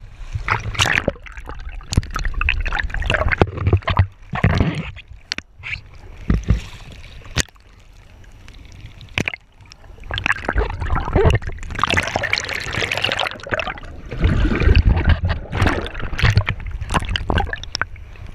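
Shallow sea water sloshing, gurgling and splashing around a handheld camera as it moves at and below the surface, coming in irregular surges with a few sharp clicks.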